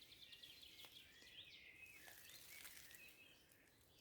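Faint songbird song in a spring forest: a quick trill at the start, then a few slurred whistled notes.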